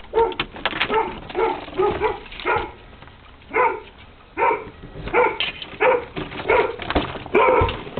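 A dog barking repeatedly at a stranger, about a dozen sharp barks with a short pause partway through: alarm barking at an unfamiliar person who has come into the home.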